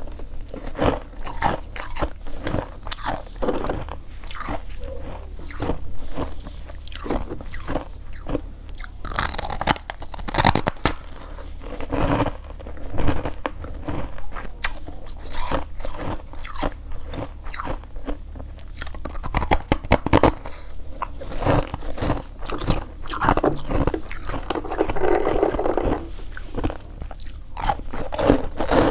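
Close-up crunching and chewing of freezer frost: a rapid, irregular stream of crisp bites and crackles as mouthfuls of packed frost are bitten and chewed.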